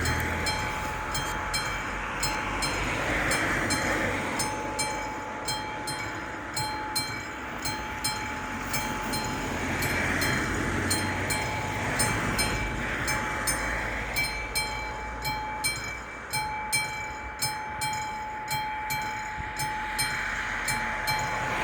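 Railway level-crossing warning bell ringing in even, rapid strokes, about two to three a second, over a steady high tone, while a ZSSK 'Dunihlav' diesel multiple unit passes through the crossing.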